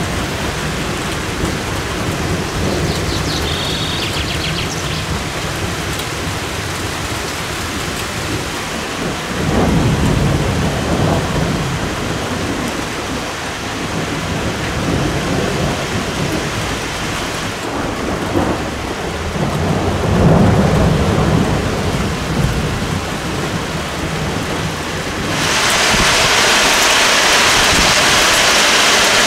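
Steady rain pouring down, with a low roll of thunder rumbling about a third of the way in and another about two-thirds in. Near the end the rain suddenly grows heavier and louder.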